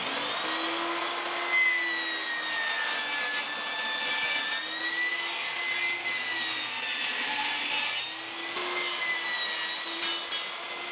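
Ryobi portable table saw running and ripping a wooden board, a steady high motor whine over the rasp of the blade in the wood. The whine wavers slightly in pitch through the cut.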